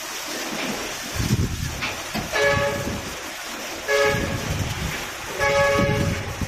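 A horn with a chord of several tones honks three times, each blast about half a second long and about a second and a half apart, over a low uneven rumble.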